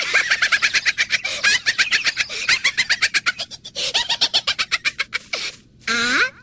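Rapid chicken-like clucking and cackling in quick pulses, a short pause, more clucking, then a drawn-out squawk that rises and falls near the end.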